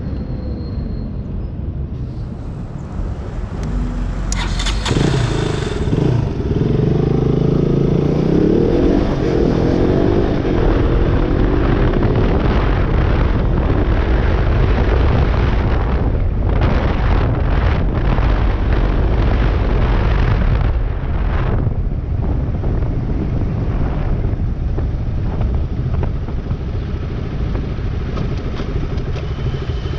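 Motorcycle engine accelerating about five seconds in, its pitch rising several times, then a steady loud rushing noise of riding at speed.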